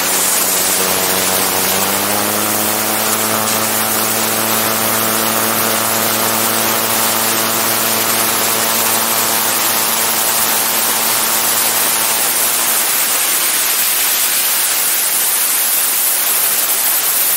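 Autogyro's engine and propeller droning under heavy wind rush on a camera mounted on the aircraft. The engine's pitch steps up about two seconds in, then the drone fades away a little past two-thirds of the way through, leaving only a steady wind hiss.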